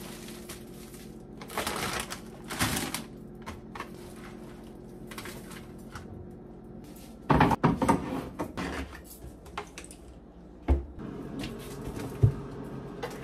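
Household items being handled in a kitchen: bursts of rustling and clattering, twice, with two sharp knocks near the end, over a faint steady hum.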